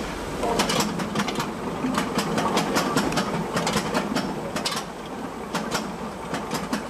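Asparagus sorting machinery running, with a dense, uneven clatter of sharp clicks and knocks over a steady mechanical noise.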